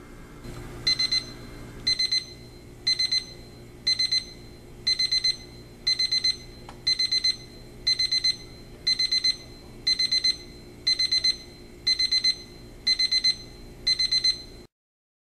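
Seiko QHR001SLH radio-controlled alarm clock's alarm going off: high-pitched bursts of rapid electronic beeping, about one burst a second. It starts about a second in and cuts off shortly before the end.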